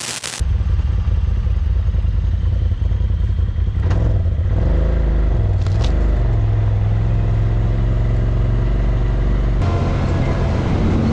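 Side-by-side UTV engine running while driving, a loud steady low drone whose pitch dips and rises briefly about halfway through. The sound changes abruptly a little before the end.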